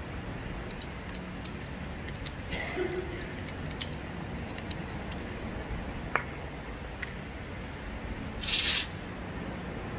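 Light clicks and taps of hand-tool work over a steady low hum, then a short, loud hiss near the end.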